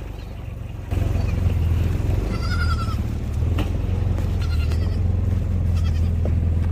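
An engine running steadily, getting louder about a second in, with a goat bleating twice over it.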